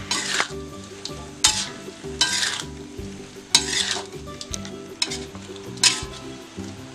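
Food being stirred in a frying pan, sizzling, with about five sharp scraping strokes that each fade quickly, over background music with a repeating bass line.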